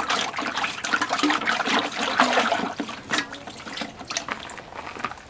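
Water splashing and pouring off the removed intake pipe of a Neffco centrifuge bowl into the bowl as the pipe is rinsed, tapering off toward the end.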